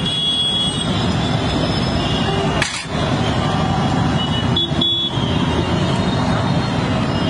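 Busy roadside ambience: a steady rumble of traffic with voices in the background and a few short, high horn-like tones.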